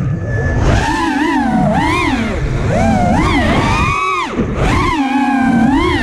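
FPV racing quadcopter's brushless motors and propellers whining, the pitch sweeping up and down every second or so with the throttle, over a low wind rumble on the onboard camera's microphone.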